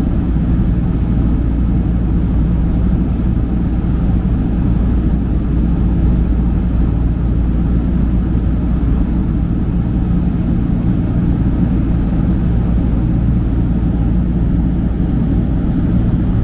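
Boeing 767-300 jet engine and airflow noise heard inside the passenger cabin in flight: a steady deep rumble with a hiss above it, unchanging throughout.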